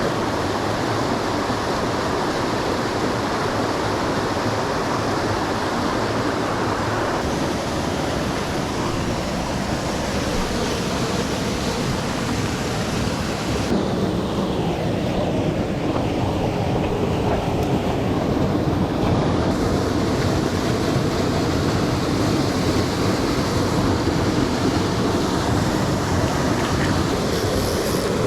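A mountain trout stream's water running steadily and loudly, its sound changing character a few times.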